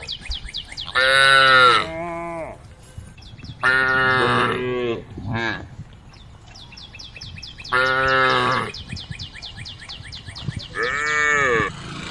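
Cows mooing, calling to the herd: about four loud, drawn-out moos a few seconds apart, each dropping in pitch as it ends, with a couple of shorter calls in between.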